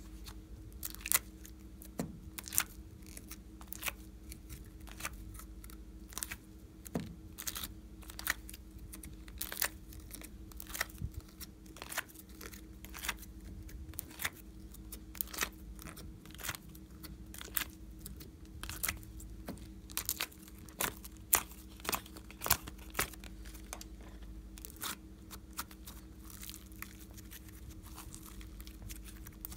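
Sticky glossy slime being pressed out of a plastic heart-shaped mould and squeezed and stretched by hand, giving sharp, irregular clicks and crackles.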